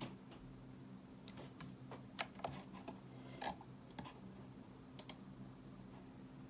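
Scattered, irregular key presses on a laptop keyboard, about a dozen soft clicks with uneven gaps, over a steady low hum.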